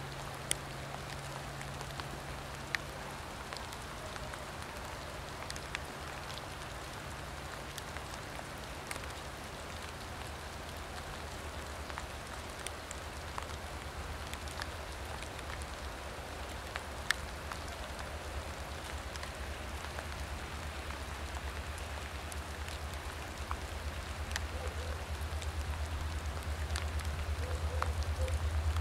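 Steady rain falling, with scattered sharp drop clicks. Through the second half, the low engine rumble of an approaching diesel train grows steadily louder.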